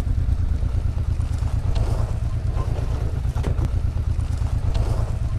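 Motorcycle engine running steadily at low speed in a low gear, a pulsing low rumble, with a few short knocks from the gravel track about two, three and a half and five seconds in.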